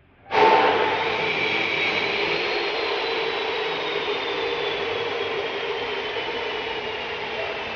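Electric power tool motor starting abruptly and running steadily, with a high whine that slowly drops in pitch.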